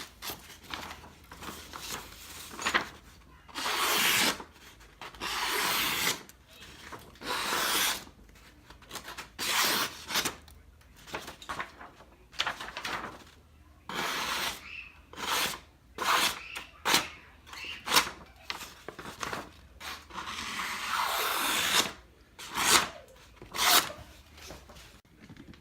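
Cleaver edge being sharpened by hand: the blade is rubbed in repeated separate strokes, each lasting up to about a second and a half and coming irregularly every second or two.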